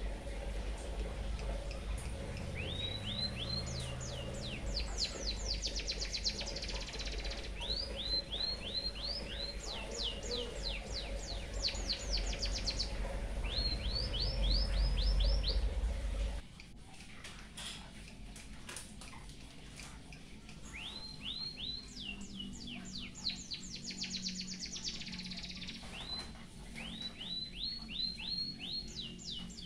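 An emprit haji songbird singing canary-like phrases: rapid trills of repeated, downward-sweeping whistled notes, several phrases with short pauses between them. A low hum runs underneath and stops suddenly about halfway through.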